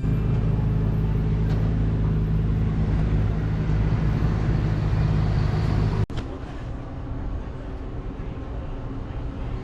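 Steady vehicle running noise: a loud low engine hum over road rumble. About six seconds in it drops suddenly to a quieter road rumble.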